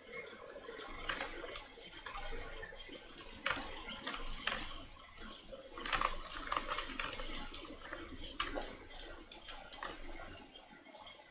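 Irregular computer mouse clicks and keyboard taps, several a second at times, over a faint steady hiss.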